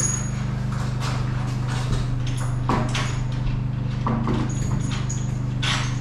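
Knocks, scuffs and footsteps as a long wooden board is carried across a room and set down on the floor, over a steady low hum.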